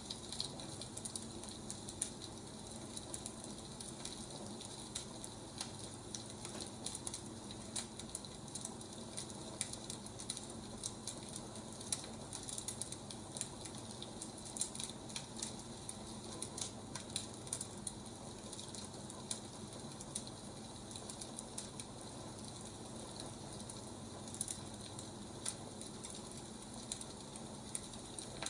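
Wood fire crackling: irregular sharp pops and snaps over a steady soft hiss.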